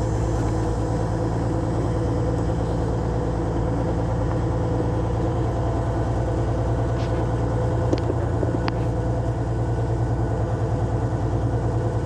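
Vehicle engine idling steadily, with a few light clicks about seven to nine seconds in.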